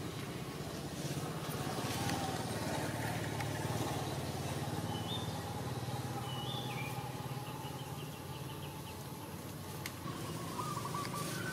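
Outdoor ambience: a steady low motor hum, with a few short high bird chirps about halfway through.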